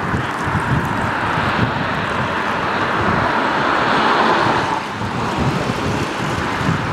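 A car passing on the wet road, its tyre hiss swelling to a peak about four and a half seconds in and then falling away quickly, over gusty wind rumble on the microphone.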